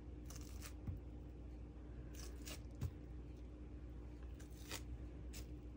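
A knife cutting and scraping through soft, sticky bread dough on a plastic-wrapped countertop. There are a few faint scraping strokes, with two soft knocks in the first three seconds.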